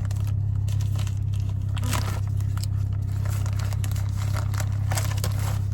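Packaging being crinkled and torn open by hand: scattered rustling and ripping over a steady low hum.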